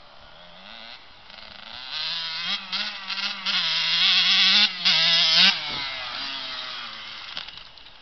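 KTM 85 two-stroke dirt bike engine revving as the bike rides across the field, its revs rising and falling. It grows louder about two seconds in, is loudest around four to five seconds, then drops in pitch and quietens as the throttle closes.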